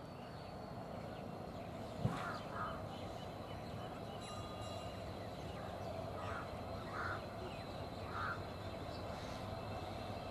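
EMD WDP4D two-stroke diesel locomotive approaching slowly, a steady low engine rumble growing slightly louder. A sharp knock sounds about two seconds in, and a few short bird calls sound over it.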